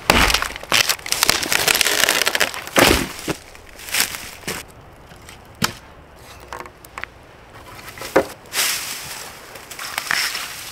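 Dry crunching and crackling, with several separate sharp snaps.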